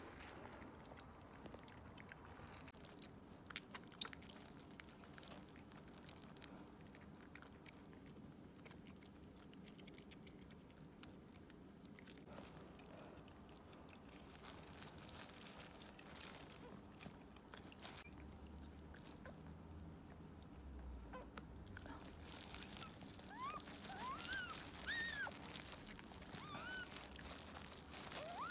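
Faint rustling and wet licking as a toy poodle mother cleans her newborn puppy. From about two-thirds of the way in, a run of short, high squeaks that rise and fall: the cries of the just-born toy poodle puppy.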